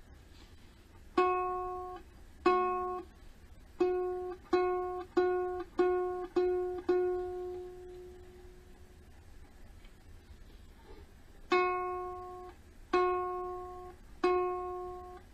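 One string of a Kala Ukadelic soprano ukulele plucked over and over at the same pitch, eight plucks then a pause and three more, each note left to ring. It is the G string during tuning, and it is still sounding an F sharp, flat of its target.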